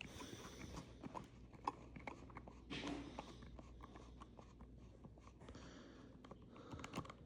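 Faint scattered clicks and light rustling from the toy's box and plastic packaging being handled, a little busier about three seconds in.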